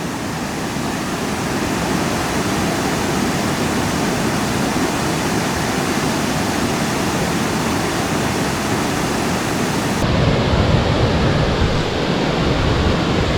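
Fukiware Falls pouring in a steady, loud rush of falling water. About ten seconds in the rush turns slightly louder and deeper.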